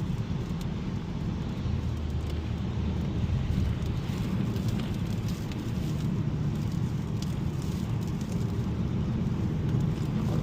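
Steady road noise heard inside a 2021 Mazda 3 Turbo AWD driving on a wet, slushy road: a low rumble from the tyres and drivetrain with an even hiss of water and slush spraying off the tyres.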